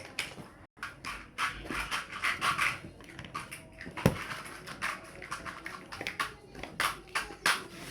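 Plastic building blocks clicking and knocking as they are handled and pressed together, with one sharper knock about four seconds in.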